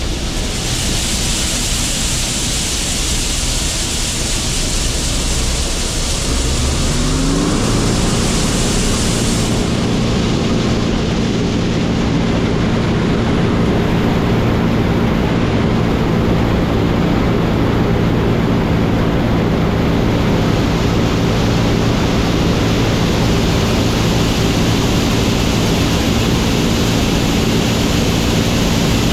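Large diesel farm machine running with a steady rushing mechanical noise; about seven seconds in the engine note climbs, then holds steady under load.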